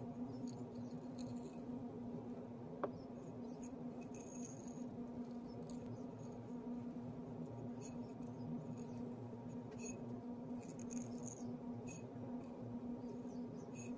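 Thin masking tape being slowly peeled off a glazed ceramic planter: faint, irregular crackling and ticking, with one sharper tick about three seconds in, over a steady low hum.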